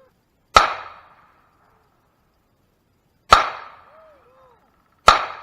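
Three pistol shots fired one at a time at an uneven pace: the first about half a second in, the second almost three seconds later, and the third under two seconds after that. Each shot is a sharp crack with a short ringing tail.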